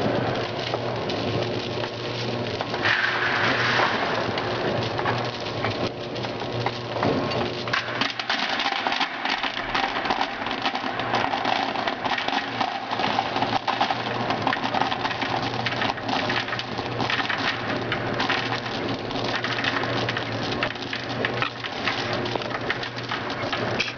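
Small pieces of chewing gum pouring steadily into a stainless-steel feeder hopper, a dense rain-like patter of pieces striking the steel and each other, over a steady machine hum.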